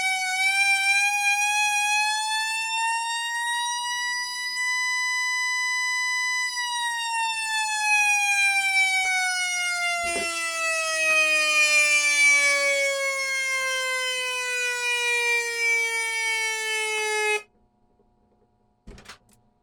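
Whelen electronic siren playing its simulated mechanical-siren tone: the wail winds up slowly, holds briefly at the top, then winds down over about ten seconds before cutting off suddenly. A single click follows in the quiet near the end.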